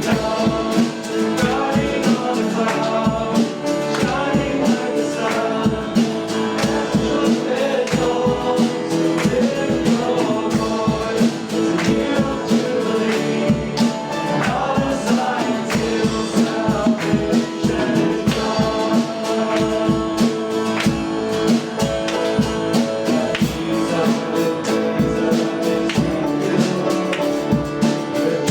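Church worship band playing a song: voices singing over guitar, with a steady drum beat.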